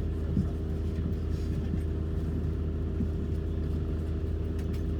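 Steady low drone inside the cabin of an Airbus A220-300 airliner on the ground before takeoff, with a few fixed humming tones and a faint click or two near the end.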